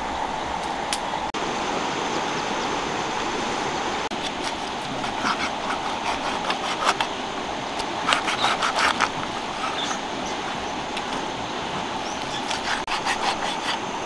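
Large knife cutting through a charred, grilled stingray, in short crackly bursts of clicks about five seconds in, again about eight seconds in, and near the end, over a steady rushing hiss.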